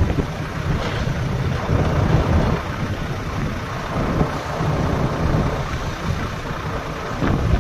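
Heavy diesel machinery running in a steady low rumble: a Volvo crawler excavator working at a Volvo FMX tipper truck, with a few faint knocks.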